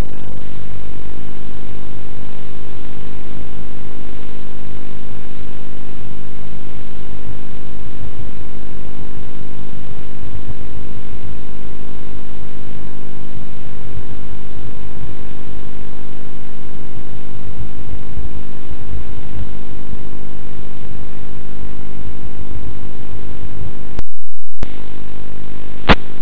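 RC plane's motor and propeller running steadily with wind noise, heard through the plane's onboard microphone and loud enough to be overdriven. The audio breaks up briefly near the end.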